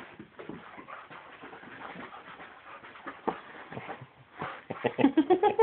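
A dog spinning after its tail, its paws scuffling softly on carpet, then near the end a quick run of whining whimpers that rise in pitch.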